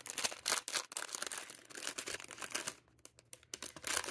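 Clear plastic bag crinkling and rustling as it is handled and opened, a dense run of crackles that thins to a few light ones near the end.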